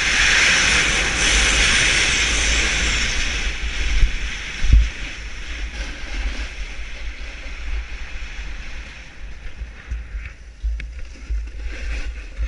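Wind rushing over an action camera's microphone, with the hiss of a snowboard sliding and carving over packed snow, loudest in the first three seconds and then fading. A few dull thumps, the largest about five seconds in.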